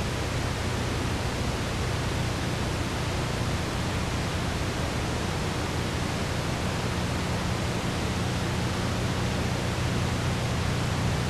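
Steady, even hiss with a low hum underneath, unchanged throughout and with no other sound: the background noise of an old analogue video recording.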